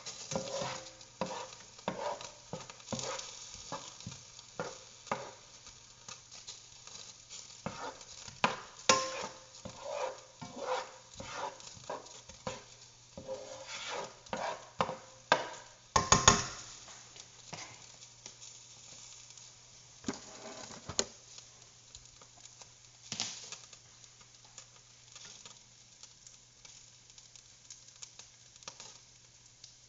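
A utensil stirring chopped onions in a pan of melted butter, clacking and scraping against the pan over a light sizzle as the onions sauté. The knocks come thick and fast at first and thin out later, with one loud knock about 16 seconds in.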